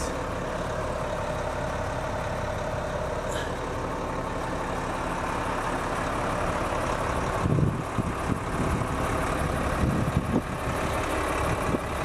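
Volvo A30F articulated hauler's diesel engine idling steadily.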